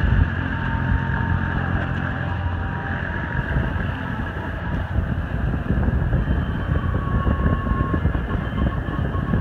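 Steady road and engine rumble inside a moving car's cabin, with a faint steady whine joining in the second half.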